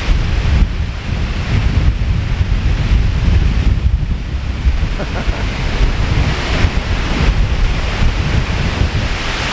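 Strong gusting wind buffeting the microphone, over the rushing roar of a waterfall swollen by heavy rain. The wind rumble is loud and uneven, and the rush of water swells and fades with the gusts.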